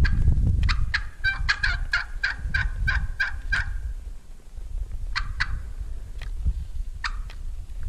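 Wild turkey hen yelping: a run of about a dozen sharp, evenly spaced notes, then a few single sharp clucks spaced out over the following seconds.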